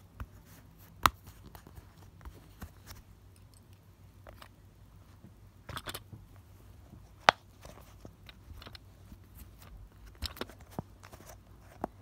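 Silicone push-pop fidget toy bubbles being pressed by a finger, giving irregular sharp pops and clicks, with two louder pops about a second in and about seven seconds in, and small scrapes from handling the toys.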